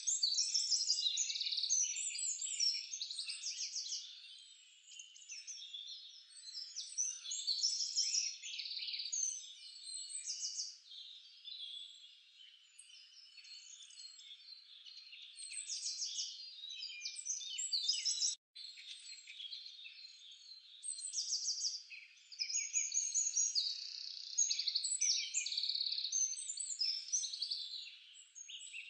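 A dense, busy chorus of high chirping and trilling birds and frogs, swelling and fading in bursts, with nothing low-pitched beneath it. It cuts out for an instant about eighteen seconds in.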